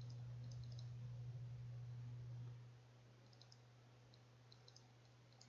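Faint, scattered little clicks from handwriting being drawn on screen with a stylus or pointing device, over a low steady hum that drops in level about halfway through.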